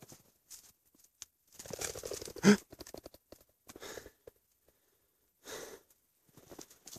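Footsteps crunching in snow in irregular bursts, with breathing, and one short louder sound about two and a half seconds in.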